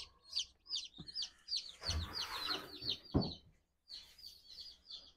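A brood of newly hatched chicks peeping, many short, falling, high peeps in quick succession. About two seconds in there is a brief rustle, and a little later a single knock.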